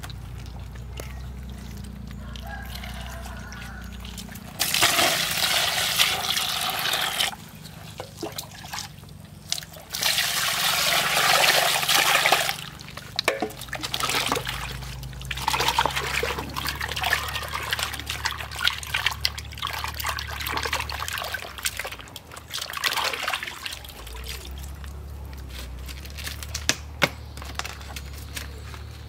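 Water sloshing and splashing in a plastic basin as hands scrub and wash cut snake meat. There are two louder spells of rushing water about five and ten seconds in, then irregular splashing.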